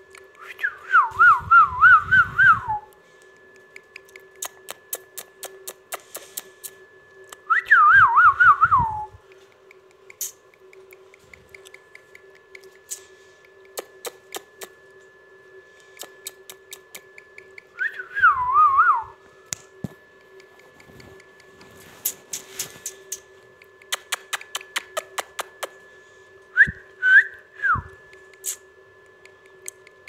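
Four short warbling whistles, spaced several seconds apart, with many small sharp clicks in between.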